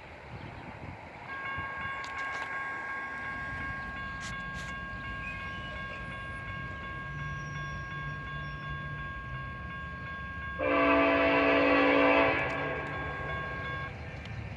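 Grade-crossing warning bell ringing steadily, starting about a second in and stopping near the end. About ten seconds in, the approaching Norfolk Southern intermodal train's locomotive horn sounds one loud blast of about a second and a half.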